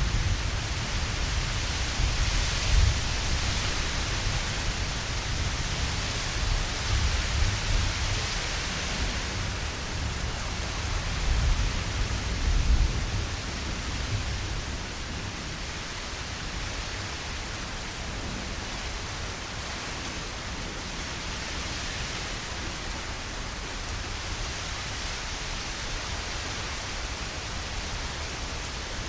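Steady hiss of rain with low rumbles like thunder swelling several times in the first half, then easing off to a quieter, even rain hiss.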